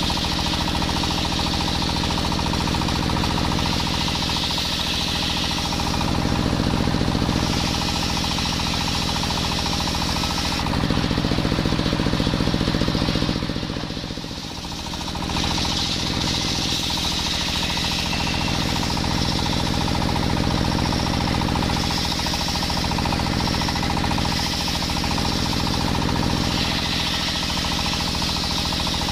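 Belt-driven circular sawmill blade ripping a coconut-wood log lengthwise into beams, over the steady running of the stationary engine that drives it. Roughly halfway through, the cutting noise eases for a few seconds while the engine keeps running, then the blade bites into the wood again.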